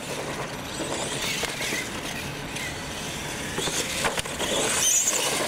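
Two R/C monster trucks racing side by side on concrete: motors and drivetrains whining under full throttle, tires scrubbing, and a few knocks about four seconds in as the trucks bounce over the ramps.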